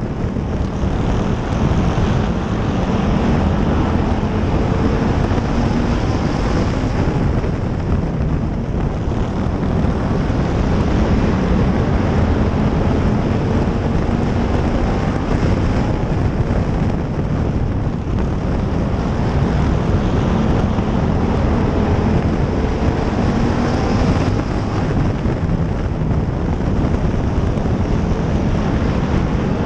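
Race car engine running hard under racing load, heard from a camera mounted on the car, its pitch slowly climbing and dropping again several times as the car accelerates and lifts around the oval. Wind rushes over the microphone throughout.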